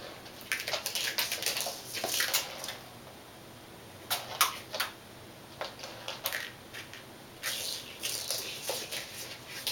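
A kitten's paws and claws skittering and scratching on a painted floor mat as she dashes and pounces. The sound comes as quick runs of small clicks in about four spells, with short pauses between.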